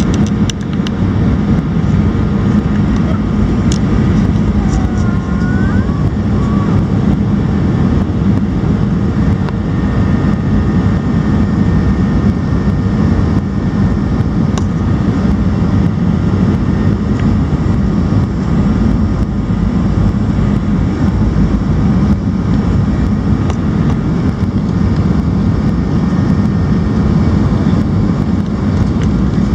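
Boeing 737 cabin noise: a loud, steady rush of jet engines and airflow heard from inside the passenger cabin.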